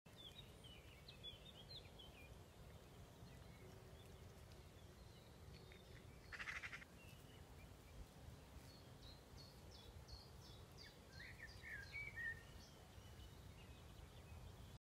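Quiet outdoor ambience with faint birds chirping in the background in several short bouts. A short rasping burst about six and a half seconds in is the loudest moment, over a steady low rumble.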